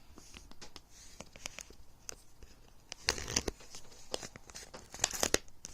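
Hands tearing open the seal on a new phone's box, with scattered small clicks and rustles and two louder ripping bursts, one about three seconds in and one near the end.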